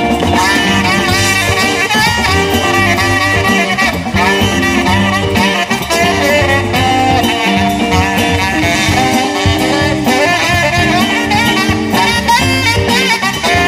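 Live band playing, with a saxophone taking a solo over electric guitar, bass and drums.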